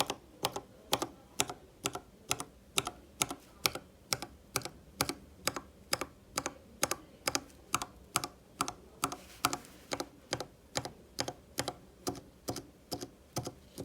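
Mechanical keyboard switch pressed over and over at a steady pace, about two keystrokes a second, each a sharp clack of the key bottoming out and springing back.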